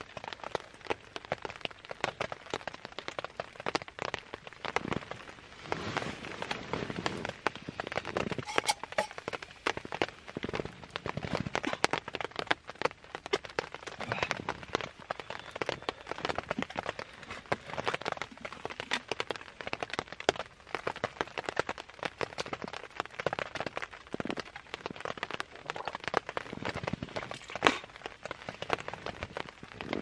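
Steady rain falling on a tarp shelter, with many close, irregular drop hits.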